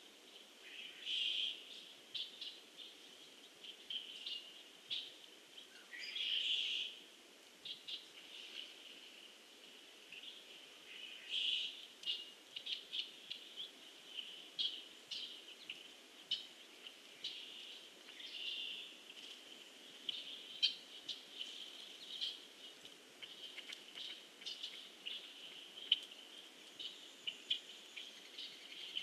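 Small birds calling: many scattered short chirps and a few longer call notes, over a faint low background hiss.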